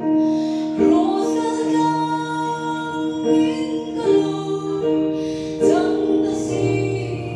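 Two women singing a slow duet into handheld microphones, holding long notes.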